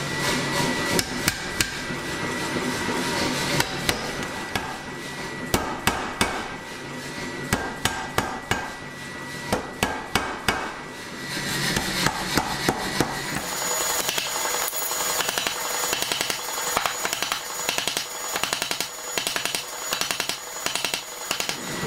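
Power hammer striking a hot titanium bar held in tongs: a fast run of repeated heavy blows.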